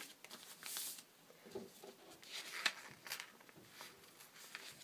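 Faint rustling of a paper sketch and fabric being handled and pinned together on a cutting mat, a few short soft rustles.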